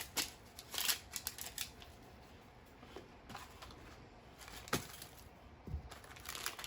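Irregular sharp clicks and short crinkling rustles of plastic toy packaging being handled and opened, in a cluster at the start, a few single clicks in the middle and more toward the end.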